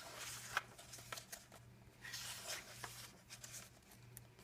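Paper pages of a coloring book being handled and turned: a few short, soft rustles and light taps over a faint steady hum.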